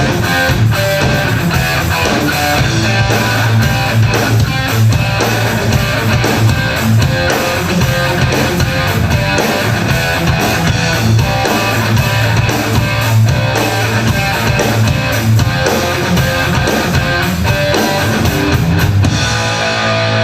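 Rock band playing live: loud, strummed electric guitars over a drum kit, with no singing.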